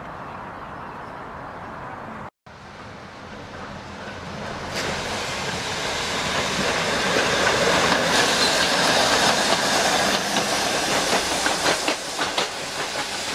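Old streetcar rolling along the track: the rumble and hiss of steel wheels on rail grow louder as it comes closer, and near the end the wheels click over rail joints. The sound cuts out briefly about two seconds in.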